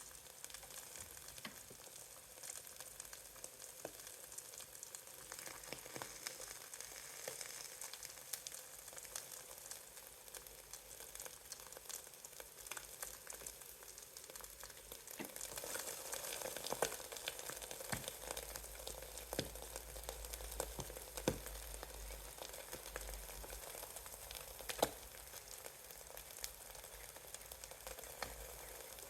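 Eggs frying in a pan: a steady sizzle with scattered pops and crackles. It grows louder about halfway through, with a few sharper pops.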